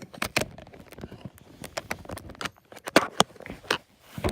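Irregular sharp clicks and knocks, several a second, with the loudest about three seconds in: objects being handled close to the microphone.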